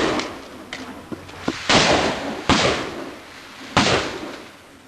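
Shotgun shots fired in quick succession during a practical shooting stage: three loud blasts about a second apart, each with a short echo, with a few lighter clicks before them.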